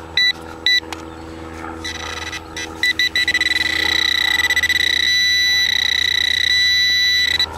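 Handheld metal-detecting pinpointer beeping: two short beeps, then from about two seconds in fast beeping that runs into a steady tone with brief breaks. The steady tone signals metal in the dug-out plug of soil, here a coin.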